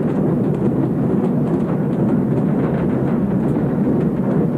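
Steady low rumble of a train running along the rails.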